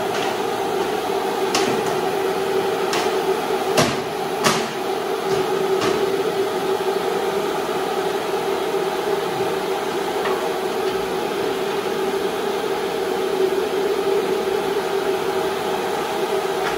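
A steady mechanical hum with a few sharp metal knocks in the first six seconds, from hands working at the engine bay of a Bobcat T770 compact track loader.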